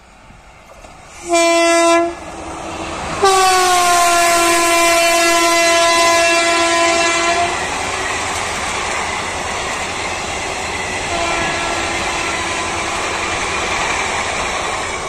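Passenger train horn: a short blast, then a long blast whose pitch drops slightly as the train reaches the spot. The rumble and wheel clatter of coaches passing close at speed follows, with a fainter horn tone sounding again for a few seconds near the end.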